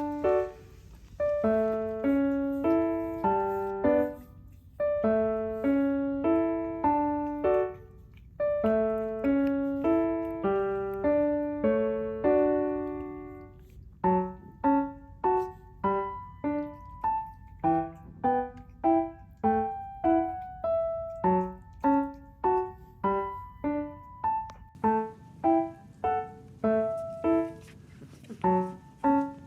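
Background music: a light piano tune played note by note in short phrases. From about halfway the notes come quicker and more evenly.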